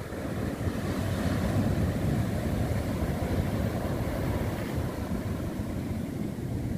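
Surf breaking and washing up a sandy beach, a steady rushing wash that swells about a second in, with wind buffeting the microphone.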